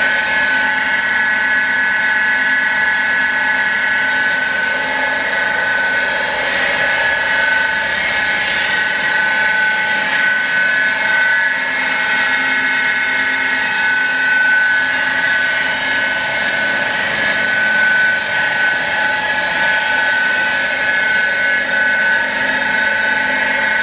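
Ross HSM-105 high-shear mixer/emulsifier on a 5 HP, 3475 rpm electric motor, running steadily in the empty stainless kettle with a high-pitched whine.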